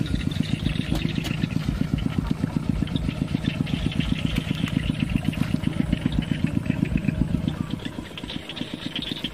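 A small engine running steadily with an even, rapid low chugging pulse, easing off slightly near the end.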